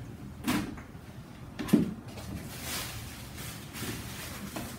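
Grill parts and their packaging being handled and set down: two dull knocks, about half a second and just under two seconds in, then a rustle of packing material.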